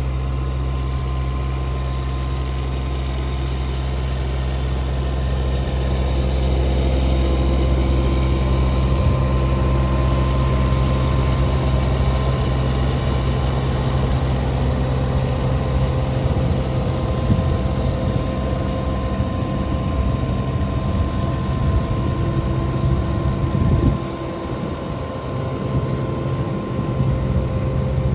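Kubota U17-3a mini excavator's diesel engine running steadily. Near the end its low rumble drops abruptly and the sound becomes more uneven.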